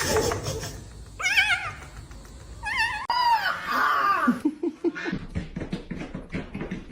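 An animal calling: two short warbling calls, then a longer call that falls in pitch, followed by a run of light clicks or taps.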